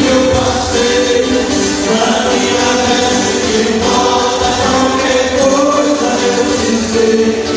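Music with several voices singing together over a band backing.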